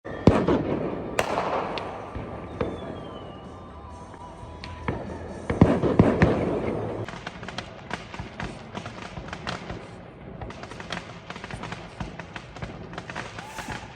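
Fireworks going off: a heavy bang about a third of a second in and another cluster of bangs around six seconds, each with a long rumbling decay. From about seven seconds a dense run of sharp firecracker cracks follows.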